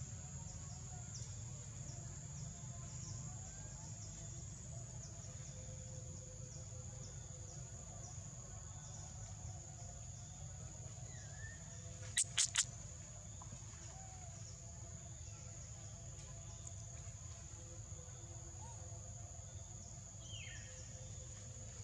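Steady high-pitched drone of insects over a low background rumble, with a few faint bird chirps. About halfway through, three quick sharp clicks sound in a row.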